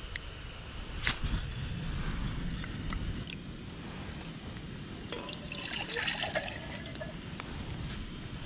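A fire steel scraped about a second in, throwing sparks onto a small tin burner to light it. About five seconds in, water is poured from a mug into a pot for a second or two, trickling and splashing.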